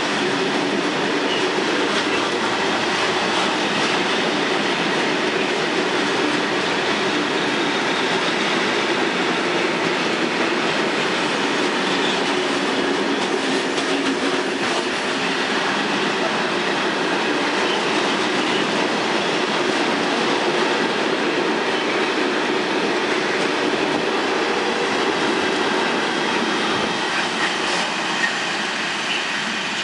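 A freight train of Talbot hopper wagons rolling past at speed: a loud, steady rumble and clatter of wheels on rail, starting to fade near the end as the last wagon goes by.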